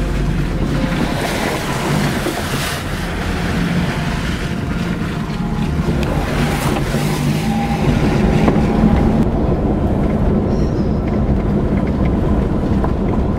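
A 4x4's engine and drivetrain drone heard from inside the cab while driving a muddy forest track, with two bursts of tyre splashing and rattling through wet ruts. Near the end it settles to a smoother steady drone on gravel road.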